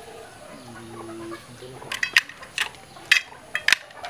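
Chickens clucking: several short, sharp calls in the second half, the loudest about three seconds in. A short, low, steady call sounds about a second in.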